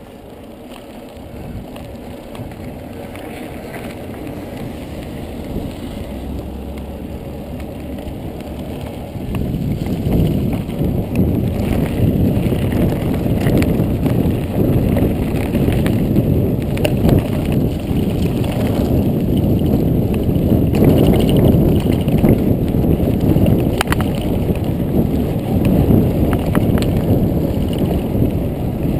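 Mountain bike being ridden on a trail, heard from a mounted action camera: a dense rumble of tyre and wind noise on the microphone with occasional clicks and rattles, growing louder about nine seconds in.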